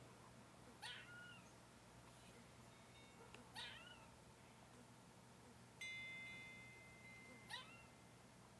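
A squirrel's short, hiccup-like calls, three in all, a few seconds apart, each a quick downward sweep ending in a brief hooked note; faint. About halfway through, a steady ringing tone sounds and fades over about two seconds.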